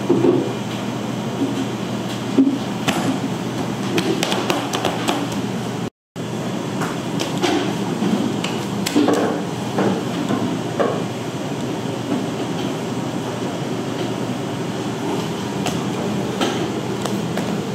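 Working bakery kitchen: a steady machine hum under scattered light knocks and clicks of handling and tools. The sound drops out for an instant about six seconds in.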